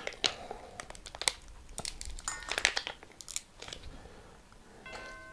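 Plastic packaging crinkling and crackling, with scattered light clicks, as a dressing is added to the bowl.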